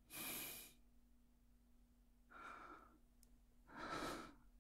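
A man's soft, breathy exhales close to the microphone: three short, quiet ones, the first right at the start and two more near the end.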